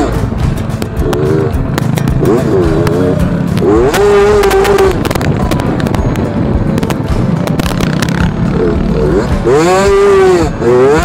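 Yamaha YZ65 two-stroke dirt bike engine under riding, its pitch sweeping up and dropping off again several times as the throttle is opened and closed, with scattered clicks and rattles from the ride.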